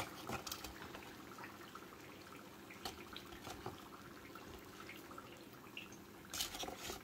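Faint crackle and drip of hot oil from freshly fried vegetarian spring rolls draining in a mesh strainer. Light clicks and taps come as tongs lift and set the rolls down, the loudest cluster near the end.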